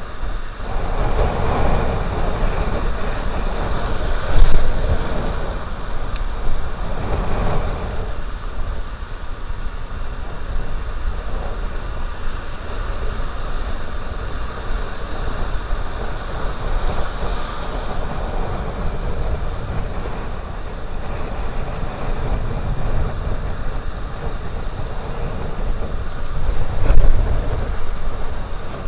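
Sea surf breaking and washing over the rocks, with wind rumbling on the camera microphone. The noise swells briefly twice, about four seconds in and near the end.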